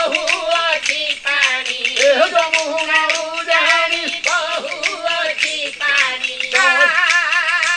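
Dashkathia folk song: a voice singing a wavering melody over the dry, rapid clicking of hand-held kathia wooden clappers. Near the end a long note is held with a strong waver.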